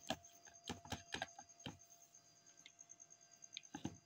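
Wire whisk beating a gram-flour and egg batter in a bowl, its wires clicking faintly against the bowl's side: a quick run of clicks in the first second and a half, then two more near the end.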